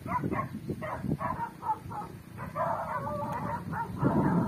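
A dog barking in short yelps, then a drawn-out whining howl from about halfway that grows louder near the end.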